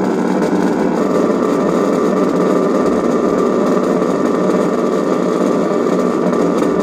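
Malfunctioning doorbell making a loud, steady buzzing noise on its own, without being rung.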